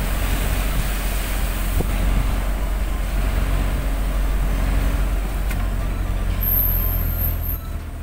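Vehicle driving on a wet road, heard from inside the cab: a steady low engine rumble under a continuous hiss of tyres on the wet surface. A brief thin high-pitched tone sounds near the end.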